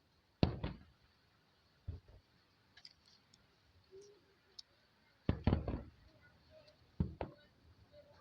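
Fireworks going off: a string of sharp bangs, one about half a second in, another near two seconds, a quick cluster just past five seconds and two more near seven.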